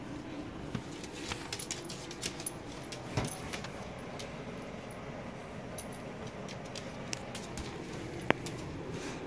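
Scattered light clicks and rattles as a Jack Russell terrier scrambles about a tile floor, with a louder knock about three seconds in and a sharp tick near the end.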